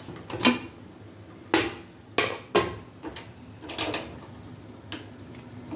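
Aluminium pressure cooker lid being unlocked, twisted open and lifted off the pot: about six sharp metal clanks and knocks, the loudest in the first three seconds.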